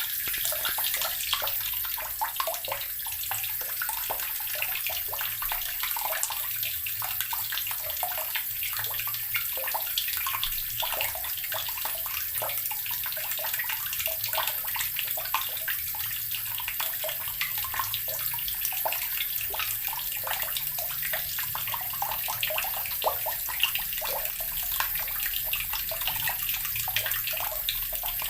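Water running steadily from a tap and splashing into a basin below, a constant hiss with fine splashing.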